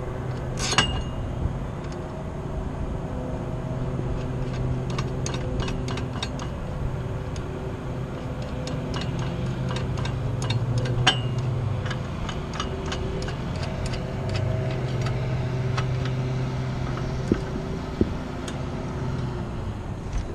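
Metal hardware and climbing gear clinking and tapping against a steel tower, in many sharp irregular ticks; the loudest, about a second in, rings briefly, and another sharp clink comes about eleven seconds in. A steady low mechanical hum runs underneath.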